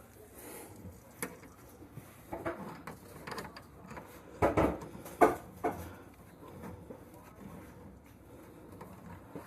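Scattered knocks and clunks of objects being handled, the two loudest about four and a half and five seconds in.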